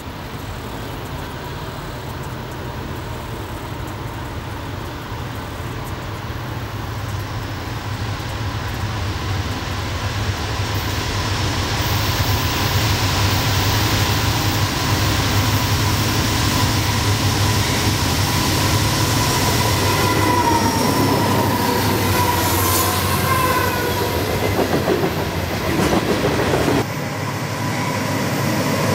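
Norfolk Southern freight train's diesel locomotives approaching, engines running and growing steadily louder, with high wheel squeals falling in pitch about two-thirds of the way through. Near the end the sound changes abruptly to another train's locomotives passing close by.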